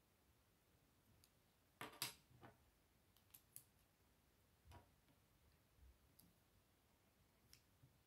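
Scattered plastic clicks and taps of Lego Technic parts being handled and fitted together, as an axle is pushed through a beam and gears are slid onto it. The loudest clicks come about two seconds in.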